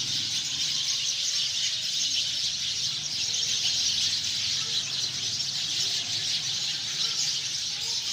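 A flock of sparrows chirping, many calls overlapping into a continuous high-pitched chatter.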